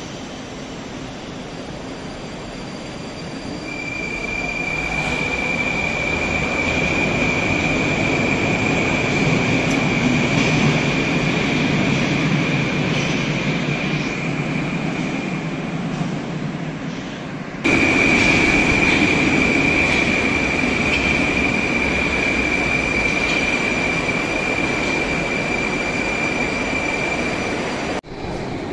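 Moscow Metro train pulling out of the station and running off down the tunnel, its noise building over the first few seconds, with a steady high-pitched whine held over it. The level jumps suddenly about two-thirds of the way through, and the same whine carries on almost to the end.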